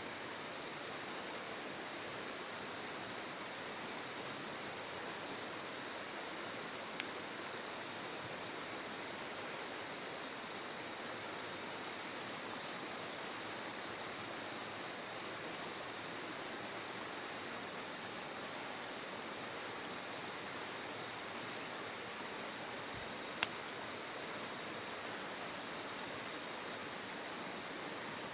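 Steady rushing of river water with a thin, steady high tone over it, and sharp cracks from a wood campfire: a small one about a quarter of the way in and a much louder one near the end.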